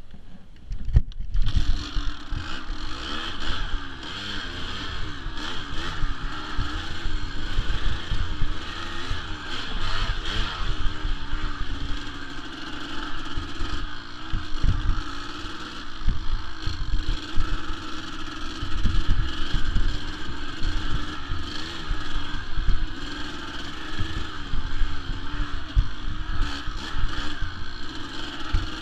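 1993 Kawasaki KDX200's two-stroke single-cylinder engine running under a rider on a trail, its pitch rising and falling with the throttle, with frequent low thumps. It starts up loud about a second and a half in.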